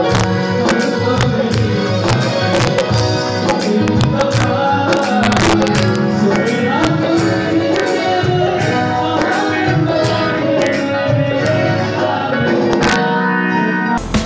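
Live band music with singing over quick hand-drum strokes. The sound changes abruptly near the end, as if cut to another recording.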